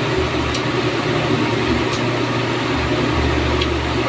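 Steady running noise of a fan, an even whirring hiss over a low hum, with a few faint clicks.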